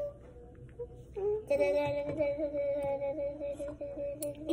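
A young girl singing one long, slightly wavering wordless note, starting about a second and a half in.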